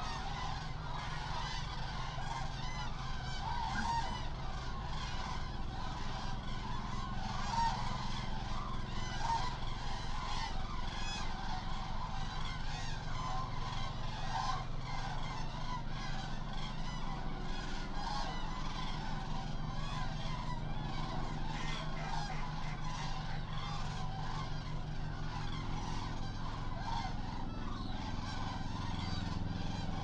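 A huge flock of Eurasian cranes calling, a dense unbroken chorus of many overlapping calls. A low steady hum runs underneath and grows louder near the end.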